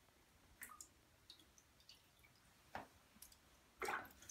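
A beagle puppy's paws splashing and dabbing in shallow bathwater in a tub: a few soft, scattered splashes and drips, the loudest near the end.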